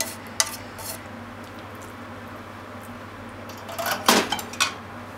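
Wooden chopsticks tapping and scraping against a metal frying pan a few times as the stir-fry is pushed out into a bowl, then, about four seconds in, a louder clatter of metal as the pan is put down.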